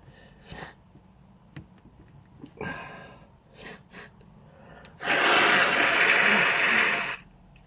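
A man blowing his nose hard for about two seconds as a sneezing fit ends. A few quieter breathing noises come before it.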